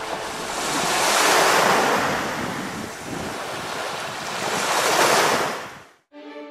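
Ocean surf washing onto a beach, swelling twice and then fading out near the end.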